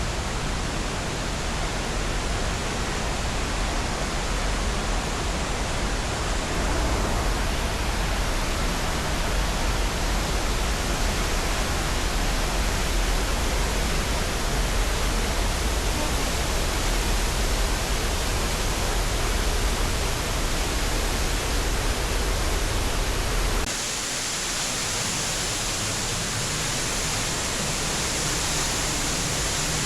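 Steady rush of a large waterfall, an even wash of falling water with a deep low rumble under it. About 24 seconds in the rumble drops away abruptly and the hiss turns brighter.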